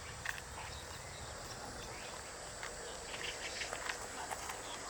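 Outdoor ambience with a faint, steady, high insect drone and scattered short ticks.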